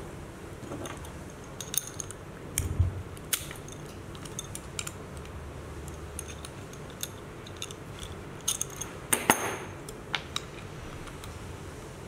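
Allen key and its metal tube lever clinking against the steel bolts of an electric skateboard's rear truck as the bolts are loosened: scattered light metal clicks, with a louder cluster of clinks about nine seconds in.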